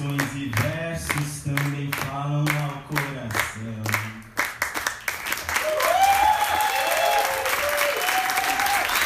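Steady rhythmic hand clapping under a man's voice singing held notes. About four and a half seconds in, the audience breaks into applause with cheers and whoops.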